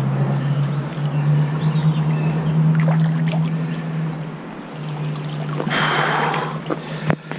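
A steady low engine hum that dips briefly about halfway through, with a few short bird chirps. About six seconds in, a brief rustle of leaves as the bankside bushes are brushed.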